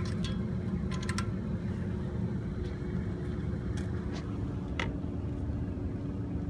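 Steady low background rumble with a constant hum, broken by a few light clicks from handling the test probe on the compressor terminals, about a second in and again near five seconds.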